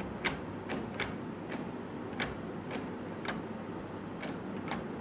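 Door lock's latch mechanism clicking as the handle is worked in a test run after reassembly: about ten sharp, irregularly spaced clicks as the spring-loaded latch retracts and snaps back.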